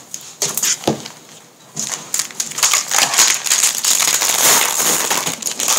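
Cellophane wrapper of a basketball card pack crinkling as it is torn open and peeled back by hand: a few small clicks at first, then steady crackling from about two seconds in.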